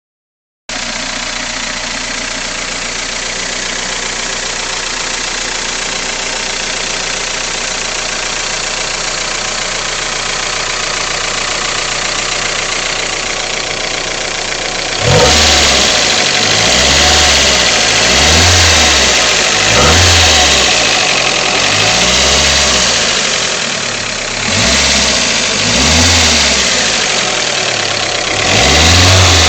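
Freshly rebuilt Toyota 4A-GE 20V four-cylinder engine idling steadily, then, from about halfway, revved up and down in several short blips. It has a ticking that the owner can't place: either the valves or the VVT pulley.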